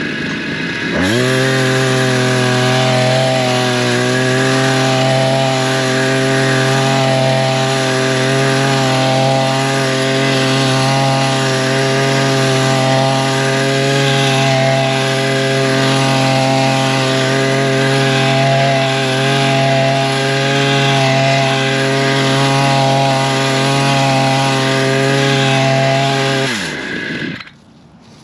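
Chainsaw-driven wheeled brush cutter running steadily as its chain skims the grass and leaves just above the ground. The motor spins up about a second in and winds down to a stop near the end.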